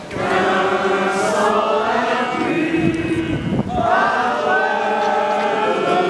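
A large outdoor crowd singing together in many voices, holding long phrases with a short break about halfway through.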